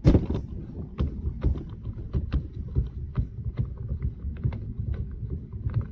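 Handling noise as a suppressor is unscrewed from a .22 LR rifle's barrel: irregular small clicks and taps over low rumbling.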